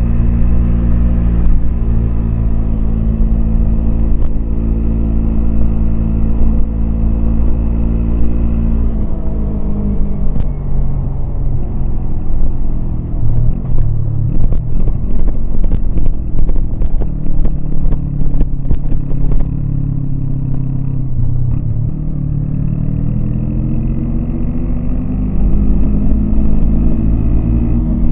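Yamaha MT-25 parallel-twin engine heard from the rider's seat. It runs steadily, drops in pitch about nine seconds in as the throttle closes, and goes choppy for several seconds with a run of sharp clicks. It then climbs in pitch again as it accelerates.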